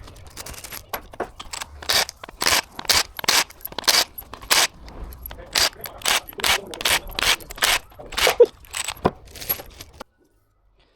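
Metal tools and engine parts clinking and scraping as the engine is taken apart: irregular sharp clicks, two or three a second, cutting off abruptly near the end.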